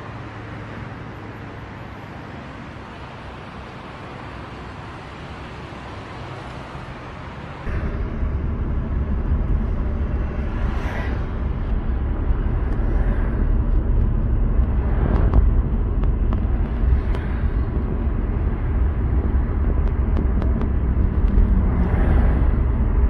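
Road traffic noise, a steady low hiss and hum at first. About eight seconds in it jumps to the louder low rumble of a car driving, heard from inside the car, with other vehicles swishing past several times.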